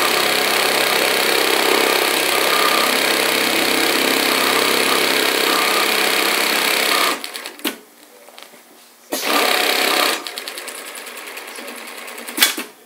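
NC Model SBA automatic carpet sample binding machine sewing binding tape onto the edge of a carpet mat at full speed. It stops about seven seconds in and runs again briefly about nine seconds in. Then comes a quieter rhythmic ticking and one sharp click near the end.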